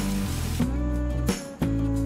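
Background music with held notes that change about every half second, guitar-like; a rushing-water hiss under it in the first half second drops away.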